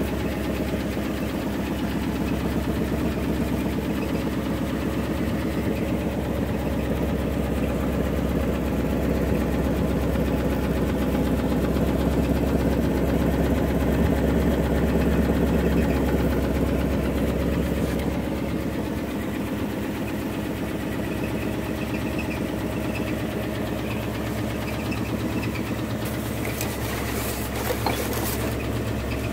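1972 Ford F-350 wrecker's engine idling steadily. Its deep low rumble drops off about two-thirds of the way through, and a few light knocks come near the end.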